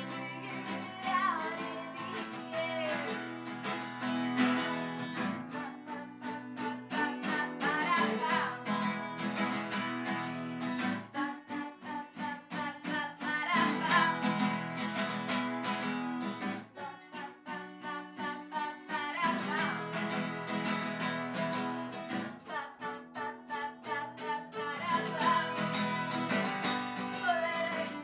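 Live acoustic guitar music: a guitar strummed and plucked in a steady rhythm, with a voice or sliding melody line over it at times.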